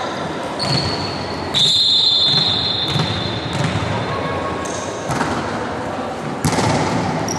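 Volleyball rally in a sports hall: the ball struck with sharp hits every second or two, under voices of players and onlookers, with high squealing tones above them.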